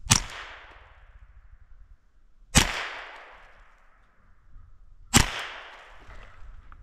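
Three gunshots from a red-dot-sighted long gun, about two and a half seconds apart, each followed by a long echoing tail that fades out over a second or so.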